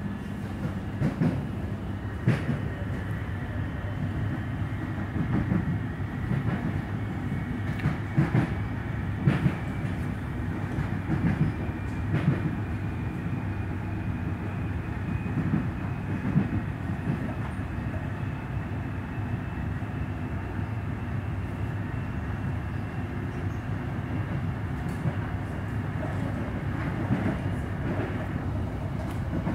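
Inside a Melbourne suburban electric train running along the line: a steady rumble of wheels on rail, broken by irregular clacks and knocks over rail joints, most of them in the first half. A faint high whine climbs slowly in pitch.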